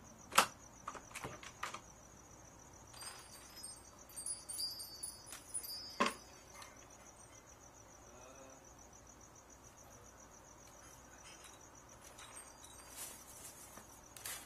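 Crickets chirping in a steady, fast high-pitched trill, with a few sharp clicks or knocks, the loudest near the start and about six seconds in.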